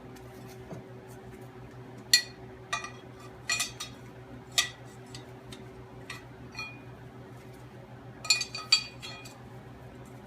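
Metal parts clinking and tapping together as they are handled, a scattered run of sharp ringing clinks, the loudest about two seconds in and a quick cluster near the end, over a faint steady hum.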